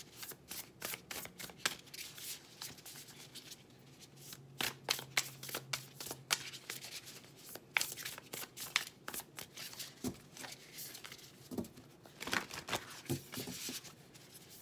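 A deck of tarot cards being shuffled by hand: quick runs of crisp card flicks, with a couple of short pauses between runs.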